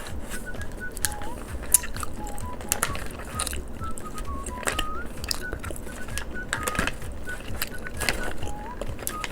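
Light background music: a simple high melody of short separate notes, a few of them sliding upward. Many sharp clicks and crackles are scattered over it.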